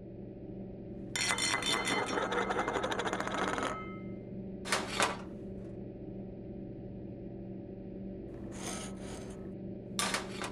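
Metal cookware clattering and rattling for a few seconds with a ringing jangle, then shorter rattles and knocks, the last as a frying pan is set down on a table near the end. A steady low hum sits under it all.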